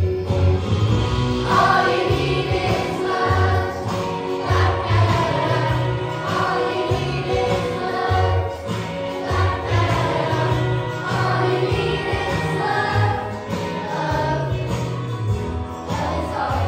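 A group of primary-school children singing a song together in unison over backing music with a steady bass pulse.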